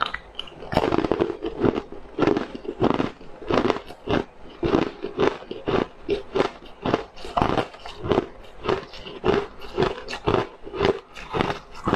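Hard frozen ice discs being bitten and chewed, with a loud crunch at each chew, about two crunches a second.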